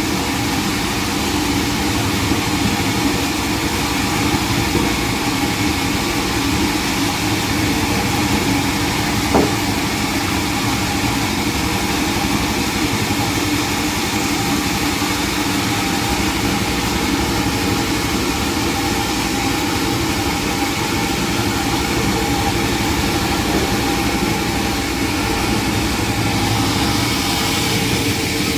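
Sawmill machinery running steadily with an engine-like hum, and a single knock about nine seconds in.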